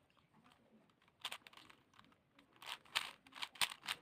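Plastic Rubik's cube being turned by hand: quick clicking turns in short bursts, a few about a second in and a faster run of clacks near the end.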